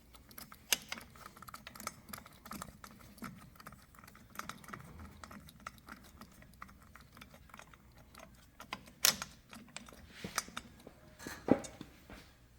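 Light scattered clicks and taps of hand work on a motorcycle front wheel, as the brake rotor and speed ring are shifted to line up a rotor bolt hole and the bolt is started. Two sharper clicks come about nine and eleven and a half seconds in.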